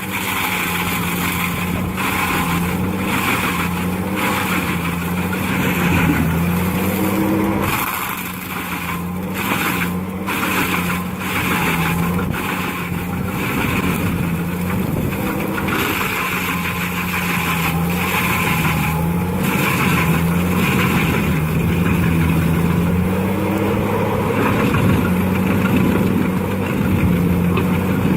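Heavy machine's diesel engine running steadily, its pitch wavering slightly up and down under changing load, with scattered short knocks over it.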